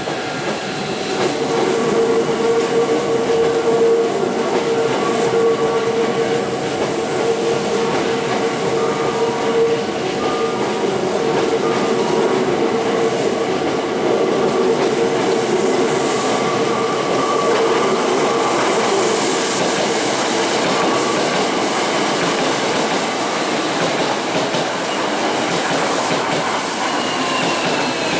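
Hankyu electric trains running through the station: a steady motor whine over wheel and rail rumble. Near the end comes a falling whine as a Hankyu 1000-series train brakes.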